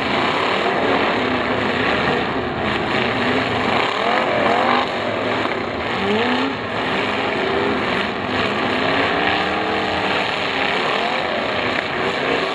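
Several demolition derby cars' engines revving hard, their pitches rising and falling over one another, with a few dull hits as the cars ram each other.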